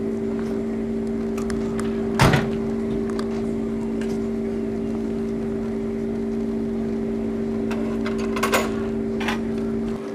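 A steady, even machine hum, with one sharp knock about two seconds in and a few short clicks near the end.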